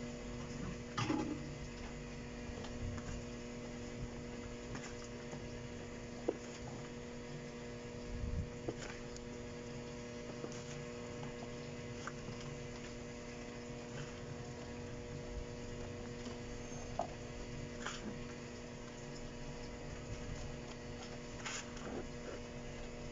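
Steady electrical hum with a few faint ticks and a soft thump about eight seconds in, as soil is scooped by hand from a bucket into a plastic tub.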